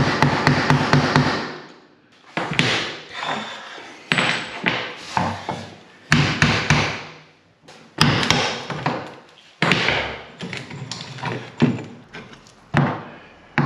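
Wall tiles being broken out with hammer blows: a quick run of rapid knocks at first, then single sharp strikes every second or two, each trailing off briefly.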